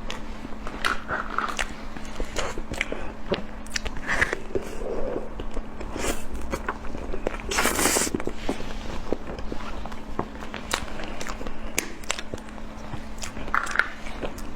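A person biting and chewing food close to the microphone: irregular wet clicks and crunches, with one longer, louder noisy burst about eight seconds in.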